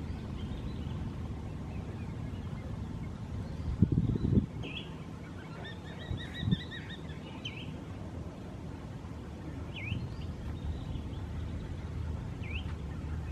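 A few short whistled bird calls, some dipping down and back up in pitch, with a quick twittering run of notes about six seconds in. Under them runs a steady low wind rumble on the microphone, with a couple of low thumps about four seconds in.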